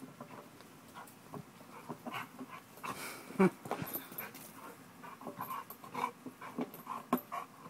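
American bulldog panting and whimpering while it exercises, with scattered short noises and one brief, louder vocal sound about three and a half seconds in.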